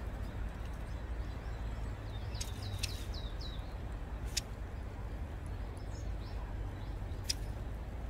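Long-tailed tits calling: a quick run of short, high, downward-slurred notes about two to three seconds in, and a few sharp high ticks, over a steady low rumble.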